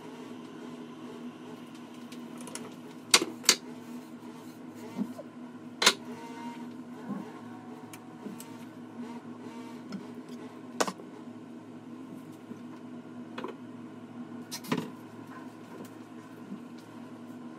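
Metal offset spatula spreading chocolate ganache over a tart, with a few sharp clicks as the blade knocks against the shell or tin, over a steady low hum.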